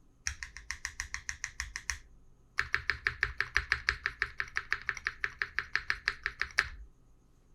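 A mechanical keyboard key with Thermal + Raed switches, pressed rapidly over and over at about eight presses a second. There is a short run of about a second and a half, then a pause, then a longer, louder run of about four seconds.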